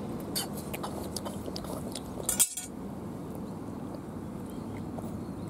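Light metallic clinks of stainless fish tongs, the loudest a single sharp click about two and a half seconds in, over a steady background hiss.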